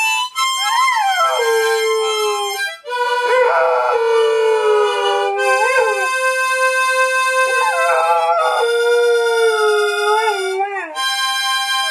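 Black Labrador howling along with a harmonica. Held harmonica notes and chords sound throughout, while the dog's howls rise and fall in pitch over them, breaking off and starting again several times.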